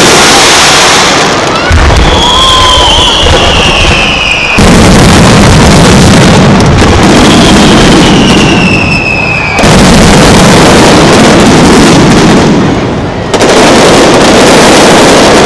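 A dense, continuous barrage of fireworks bursts, very loud, surging suddenly about two, five and ten seconds in. Twice a high whistle glides down in pitch over a couple of seconds.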